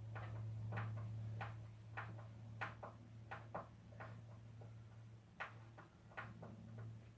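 Light, irregular clicks and knocks of wooden workpieces being handled and fitted together, roughly one or two a second, over a steady low hum.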